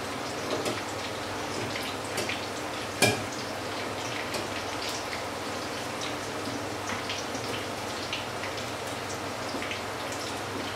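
Oil sizzling steadily with small crackles as grated-batter fritters fry in a pan, with one sharp clink about three seconds in.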